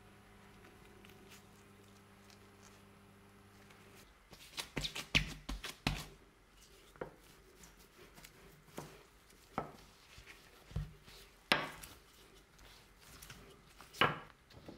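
Sharp knocks of chopping strokes on a kitchen board: a quick flurry starting about four seconds in, then single strikes about a second apart. Before them, a steady low hum cuts off abruptly.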